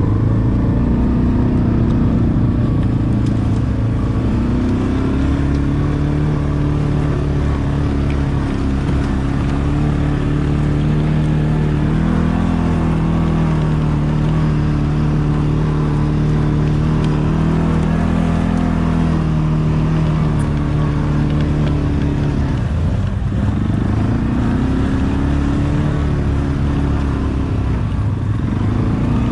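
ATV engine running under way, its pitch rising and falling with the throttle; well past the middle it drops sharply and then climbs again.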